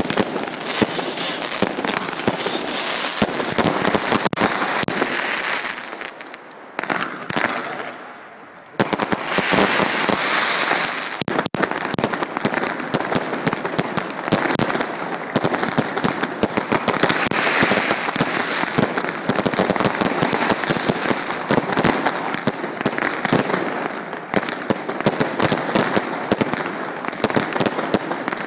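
Fireworks display: a dense, continuous barrage of bangs and crackling, dropping to a short lull about six seconds in and then resuming at full intensity.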